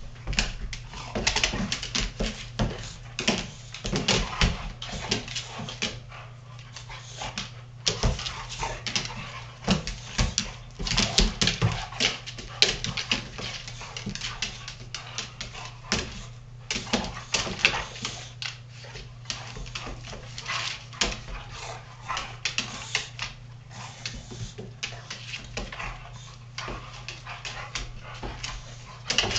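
A Doberman and a Boxer play-fighting, with bursts of dog vocalizing and many irregular sharp clicks and knocks from their scuffling.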